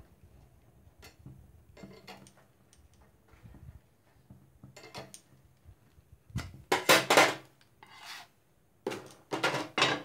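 Metal kitchenware clattering: a steel spatula scraping and tapping faintly against a gas burner's grate, then two louder bouts of metal scraping and clattering in the second half as a flat nonstick tawa is set onto the burner.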